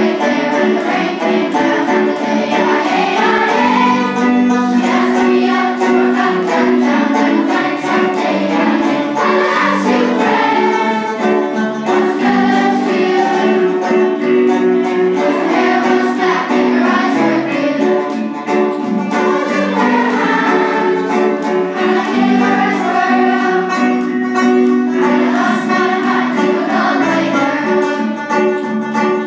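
A choir of school children singing a song together, accompanied by a banjo.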